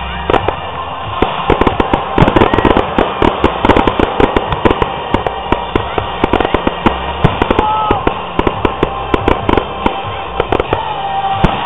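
Aerial fireworks going off in quick succession: a dense run of bangs and crackling bursts, thickest a couple of seconds in, with music playing underneath.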